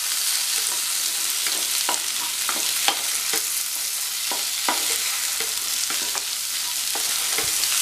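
Vegetables sizzling in hot oil in a stainless steel pressure cooker as they are sautéed and stirred with a spatula, its irregular scrapes and taps against the pan sounding over a steady frying hiss.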